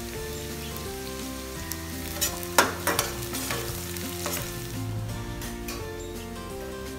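Garlic cloves, onions and chillies sizzling in hot oil in a stainless-steel kadai. A perforated metal ladle stirs them, scraping and clinking against the pan, with the sharpest clinks about two and a half to three seconds in.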